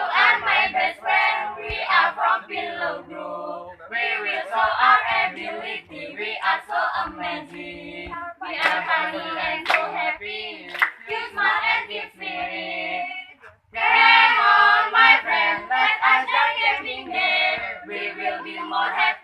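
A group of young people singing a cheer song together in unison, with hand claps now and then.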